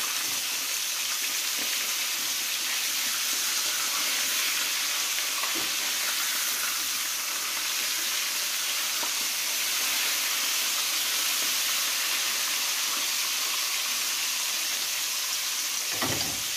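Floured horse mackerel frying in hot olive oil in a frying pan: a steady sizzle, with a few light clicks of metal tongs as the fish are turned and a knock near the end.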